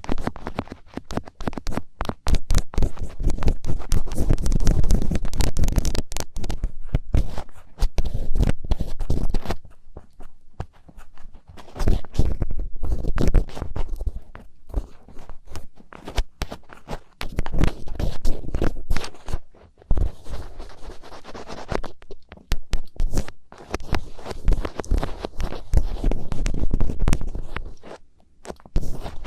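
Thin ear picks scratching and scraping at an ear, recorded very close so that each stroke carries a low rumble. The scratching comes in runs of a few seconds with short pauses between them.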